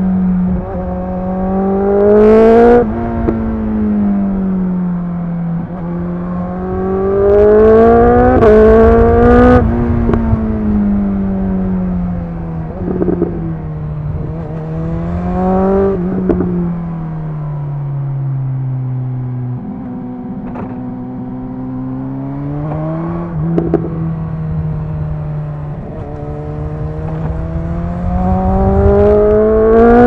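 BMW S 1000 XR's inline-four engine through a Cobra slip-on exhaust with the dB killer removed, under way. The revs climb and drop through several gear changes, with sharp cracks at some of the upshifts. In the middle the pitch falls away as the bike slows, then it pulls up again near the end.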